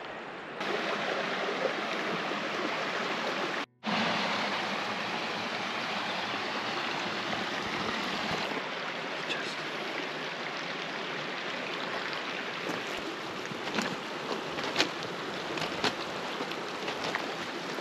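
A river running steadily, a close, even wash of flowing water. It cuts out for an instant just under four seconds in, and a few faint ticks come through in the second half.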